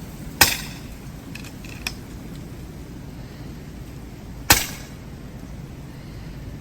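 Two shots from a .177 AirMaks Katran PCP pellet rifle, sharp cracks about four seconds apart, with a couple of lighter clicks between them. Wind rumbles on the microphone throughout.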